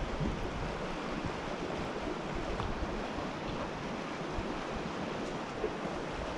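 Wind buffeting the camera microphone, a steady rushing noise that flutters unevenly in the low end.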